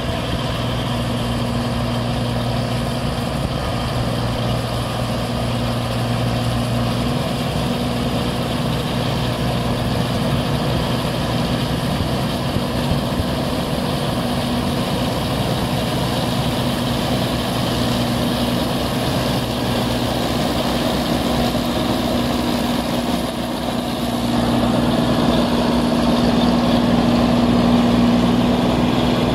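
Rice combine harvester's diesel engine running steadily, with a steady hum from its drives. It gets somewhat louder about four-fifths of the way through.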